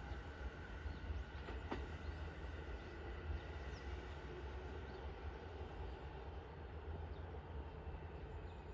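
E217 series electric train running away along the track: a steady low rumble with a faint steady hum.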